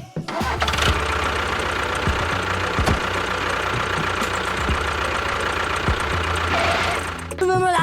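A small motor-driven machine running steadily with a rattling, knocking sound and scattered clicks. It stops about seven seconds in.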